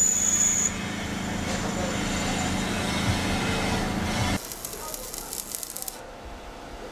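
A machine runs with a steady hum and a high whine that stops under a second in. The hum cuts off sharply about four seconds in, followed by a brief, fast rattling.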